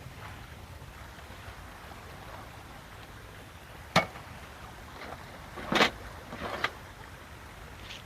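A sharp knock about four seconds in, then a brief clatter of handling noises near six seconds, over a steady low rumble.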